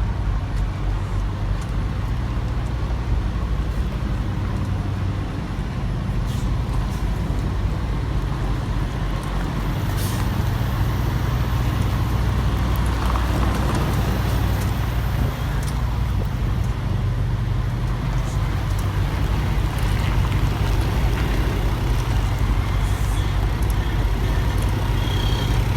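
Semi-truck diesel engine running steadily at low revs, a constant low rumble with a few faint clicks over it.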